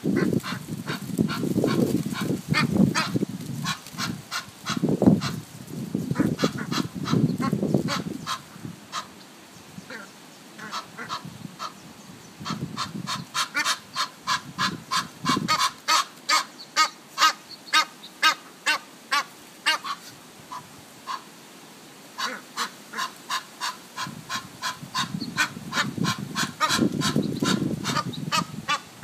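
Egyptian goose goslings peeping, a steady run of short high peeps several a second. Under them, in the first eight seconds and again near the end, comes a lower rough sound, most like the adult Egyptian geese calling.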